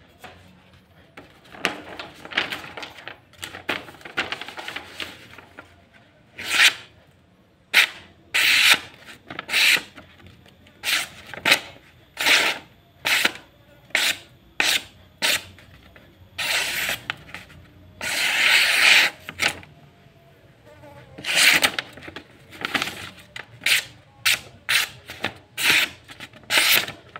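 A hand-held sheet of paper being sliced repeatedly by a curved celurit sickle blade: a string of about twenty short, sharp paper-cutting rips, after softer paper rustling in the first few seconds.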